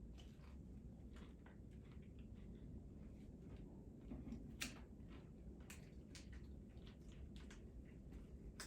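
Faint chewing and wet mouth clicks of a person eating a fried fish sandwich, with a few sharper clicks scattered through.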